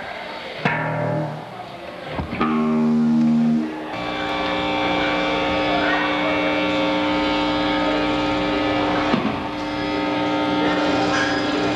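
Amplified electric guitars on stage holding long, ringing chords, the last one sustained without a break for the final eight seconds. A few sharp hits come under them: one near the start, one about two seconds in and one about nine seconds in.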